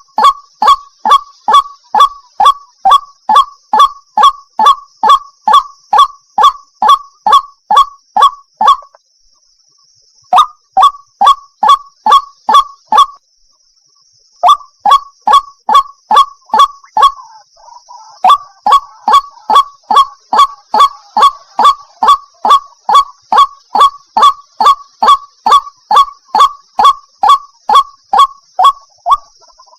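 White-breasted waterhen (ruak-ruak) calling over and over, a rapid string of about three harsh calls a second, broken by two short pauses about a third and half of the way through. It is the repeated call that the uploader labels a female calling the male.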